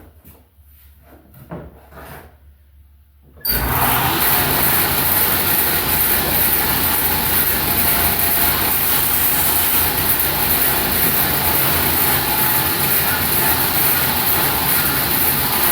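A few light clicks and knocks of handling, then about three and a half seconds in a table saw switches on and runs steadily and loudly, ready to rip a straight edge on a rough-sawn hardwood board riding in a straight-line jig.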